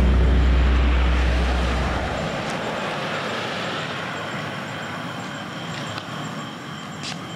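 A deep rumbling boom that hits suddenly and holds for about two seconds, then thins into a broad rushing noise that slowly fades away.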